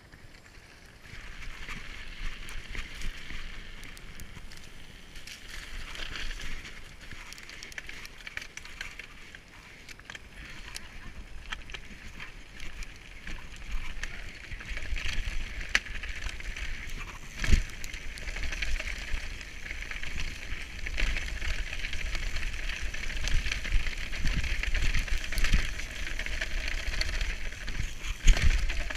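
Mountain bike ridden down a rocky dirt trail: tyres crunching and crackling over loose gravel and stones, with sharp knocks and rattles as the bike hits bumps and a low rumble underneath. It grows louder about a second in, and the loudest knocks come past halfway and near the end.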